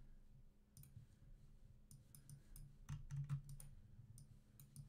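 Faint computer mouse clicks, a scattered, irregular series of small clicks.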